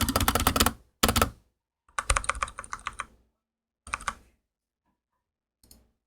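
Keychron K8 mechanical keyboard with Gateron Brown switches, foam-dampened and fitted with rubber O-rings, being typed on. A fast run of keystrokes breaks into shorter bursts with pauses, ending in a few last key presses.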